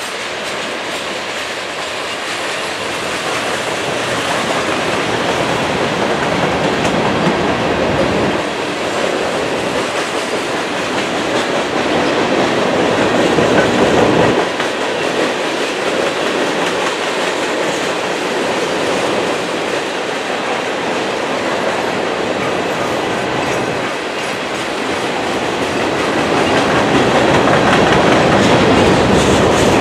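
Freight cars of a passing train (tank cars, then a refrigerator car and boxcars) rolling by close: a steady rumble and rattle of steel wheels on rail with clickety-clack over the joints. It grows louder about halfway through, eases, and swells again near the end.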